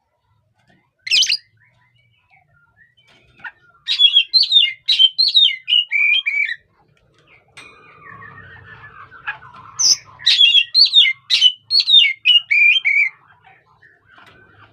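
Oriental magpie-robin (kacer) calling and singing: one harsh call, then two bursts of rapid, varied chirping phrases, each about three seconds long. A fainter, lower falling sound runs between the two bursts.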